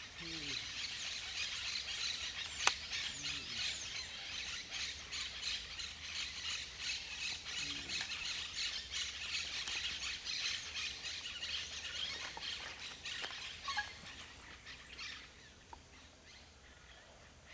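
Many small birds chirping and twittering together in a dense, steady chorus that thins out near the end. A single sharp click about two and a half seconds in.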